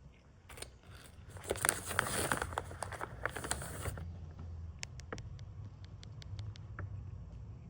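A snack wrapper being crinkled and handled, a dense crackling for about two seconds, followed by scattered light ticks.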